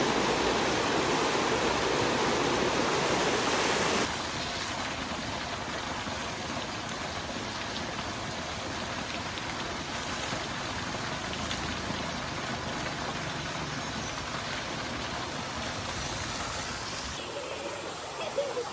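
Steady rushing of a flowing stream. It is louder for the first four seconds, then runs on a little quieter.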